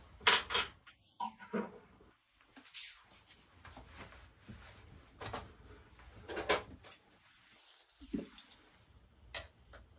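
Scattered clicks, taps and knocks of hands handling scooter parts and tools: about eight separate short sounds, the loudest just at the start.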